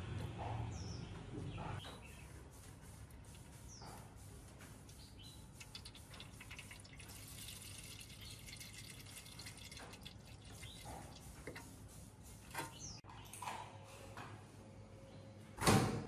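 Thin stream of water from a faucet trickling into a plastic ice-cube tray, then into a metal tray, with faint bird chirps now and then. A single sharp knock sounds near the end.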